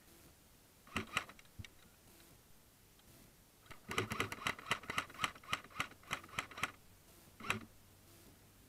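Airsoft gun firing single shots as sharp clicks: a couple about a second in, then a quick string of about a dozen at roughly four a second, and one last shot near the end.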